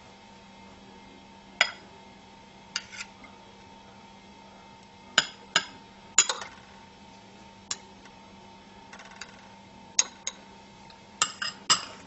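Glass verrines and a metal knife clinking and knocking against a metal serving tray: a dozen or so sharp, irregular clinks, coming closer together near the end, over a faint steady hum.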